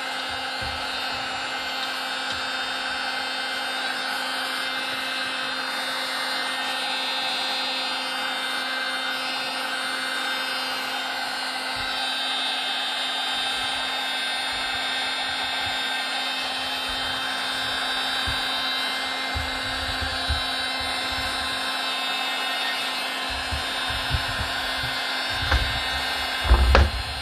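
Milwaukee M18 cordless heat gun running steadily, its fan blowing with a constant hum as it heats a decal to soften the glue. A few low bumps near the end.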